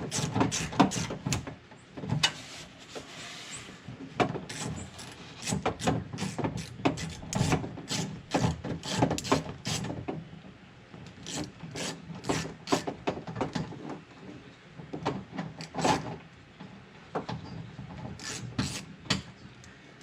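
Irregular clicks, taps and scraping of a hand tool and metal parts inside a pickup's door shell as the 10 mm screws holding the door handle are worked loose.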